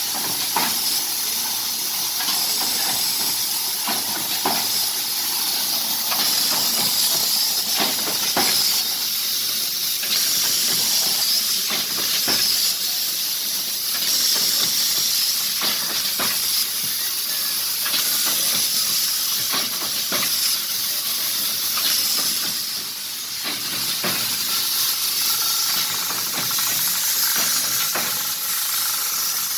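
Three-side trimming machine running: a steady high hiss with sharp knocks about once a second.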